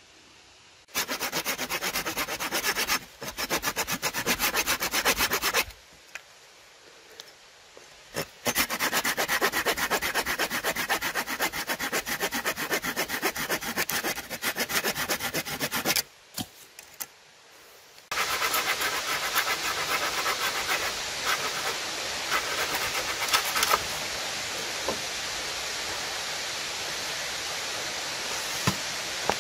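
Hand saw cutting through wood in bouts of rapid, even back-and-forth strokes, with short pauses between bouts. From about two-thirds of the way through, a steady rushing noise of running water continues under the sawing.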